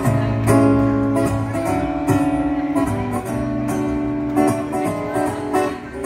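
Live acoustic guitar and djembe hand drum playing a song together, with the guitar strummed and the drum struck by hand.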